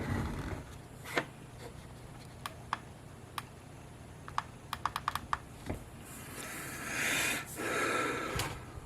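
Light clicks and taps, a quick run of them about five seconds in, followed by about two seconds of rustling.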